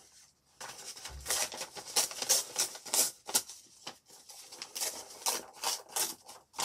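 An old book page torn by hand in a run of short rips as its blank edges are torn off.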